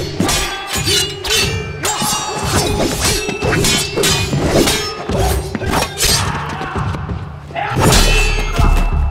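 Sound-effect sword clashes: a rapid series of metal blade strikes and swishes, some ringing briefly, over background music. A heavy low boom comes in near the end.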